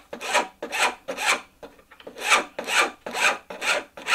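Small hand file scraping back and forth across a small homemade metal engine valve, eight even strokes at about two a second with a short pause about one and a half seconds in. It is the hand-finishing stage, shaping the valve after it has been sawn off the lathe-turned stock.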